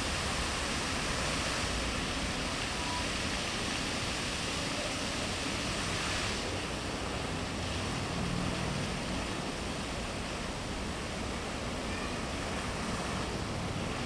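Fountain jets spraying and splashing in a steady rushing hiss. About six seconds in the hiss drops and thins as the wide fan of jets narrows to a single tall vertical jet.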